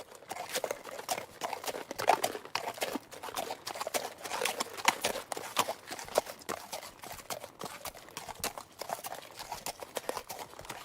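Horse walking, its shod hooves clip-clopping on a hard surface in a steady rhythm of several sharp strikes a second.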